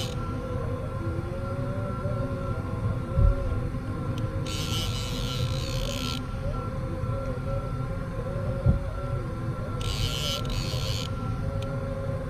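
Conventional fishing reel's drag giving line in two buzzing spurts of a second or more each, about five seconds apart, as a hooked kingfish pulls against the bent rod. A steady low rumble runs underneath, and two dull knocks come a few seconds apart.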